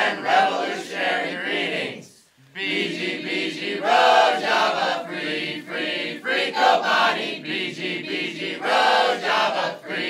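A crowd of voices chanting together in unison, with a short pause about two seconds in.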